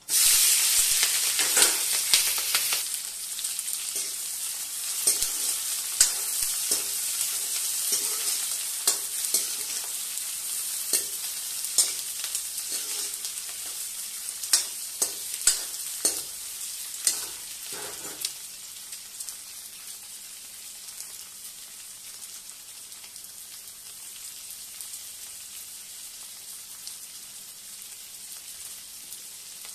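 Sliced green chillies dropped into hot oil in an aluminium kadai, sizzling at once, with a steel ladle clinking and scraping against the pan as they are stirred. After about twenty seconds the clinks stop and the sizzle settles to a quieter, steady hiss.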